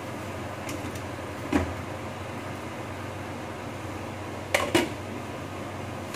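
A pan lid knocking against a frying pan, once softly about a second and a half in and then two sharp clanks close together near the end, over a steady low hum.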